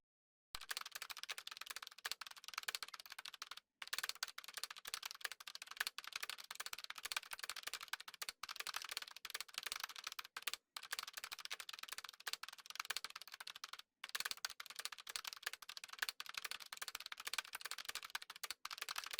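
Faint, rapid clicking like keyboard typing, running in long runs broken by a few brief pauses.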